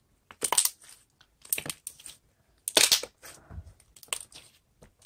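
Slime being handled and squished by hand, giving about six short, sharp crackles and pops spread unevenly through the few seconds.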